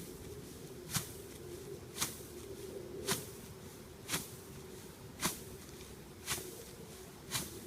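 Home-made wooden stomper-crimper being stepped down onto standing cereal rye, crushing and flattening the stalks with a rustling crunch about once a second, seven times in a steady walking rhythm.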